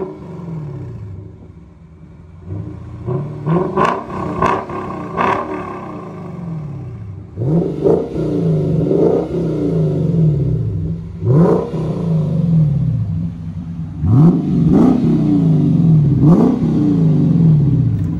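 Lexus IS 500's 5.0 V8 through a Kinney's Street Demon custom exhaust, revved repeatedly. A few short blips come about three to five seconds in, then four harder revs from about seven seconds on, each one falling back.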